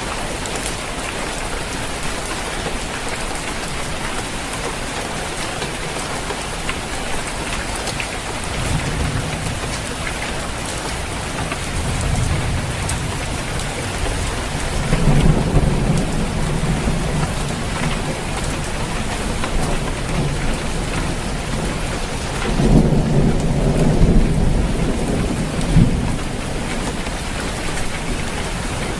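Steady rain pattering on a roof, with low rolls of thunder rumbling up several times, the strongest about two thirds of the way through.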